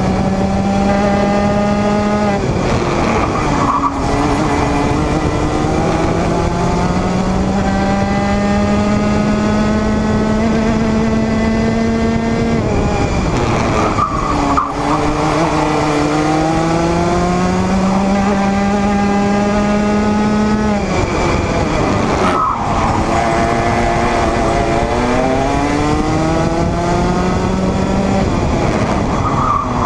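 Junior Rotax kart's 125 cc two-stroke single-cylinder engine at racing speed, revs climbing steadily down each straight and then falling away sharply into the corners, four times.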